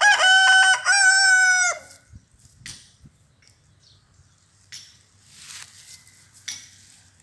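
A rooster crowing once, loud, a cock-a-doodle-doo that ends about two seconds in, followed by a few faint rustles and taps.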